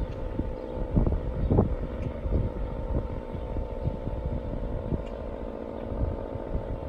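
Federal Signal SD-10 outdoor warning siren sounding its Alert signal, a steady tone held without a break. Wind buffets the microphone throughout.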